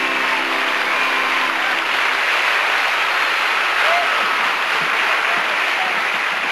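Large arena crowd applauding, with a few cheers, as a routine ends; the held final chord of the accompanying song dies away about two seconds in.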